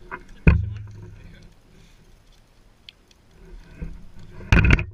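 A freshly landed fish flopping on bare ice: one sharp, loud slap about half a second in that rings low as it fades, a few faint taps, then a quick run of knocks near the end.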